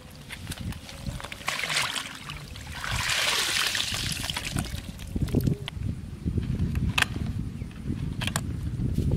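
Close handling of a plastic basket and wire fan-guard fish trap: rustling and scraping, with a few sharp clicks late on.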